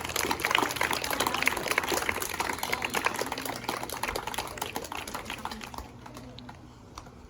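A small group clapping and cheering, dying away over about six seconds.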